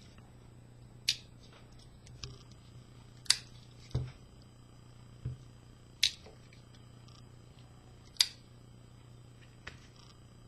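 Victorinox Trailmaster One Hand folding-knife blades being worked one-handed, the blades clicking into place: four sharp metallic clicks about two to three seconds apart, with a few softer knocks of handling between them.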